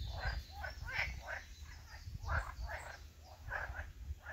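Frogs croaking from a pond: short, rasping croaks about three a second, irregular and overlapping, as from several frogs. A low rumble runs underneath.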